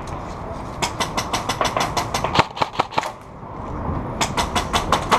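Airsoft guns firing in rapid strings of sharp cracks, several shooters overlapping, with a short lull about three seconds in before the firing picks up again.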